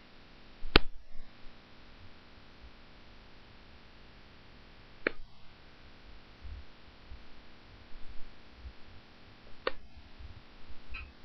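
Low steady hum with three sharp clicks, each four to five seconds apart.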